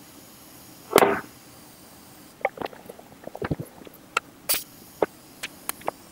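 TIG welding torch at work, with filler rod being dabbed into the puddle: a short hiss about a second in, then a run of short sharp ticks and crackles, irregular at first and more evenly spaced near the end.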